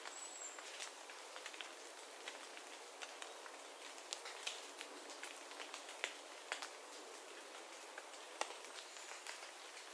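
Rainwater dripping from the trees in a forest after rain: irregular drops ticking and pattering over a steady soft hiss. A short, thin, high chirp sounds right at the start.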